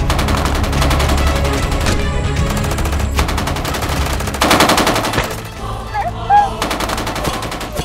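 Rapid automatic gunfire from an AK-pattern assault rifle, with music underneath. The firing is densest and loudest in the first five seconds, then thins out and quietens near the end.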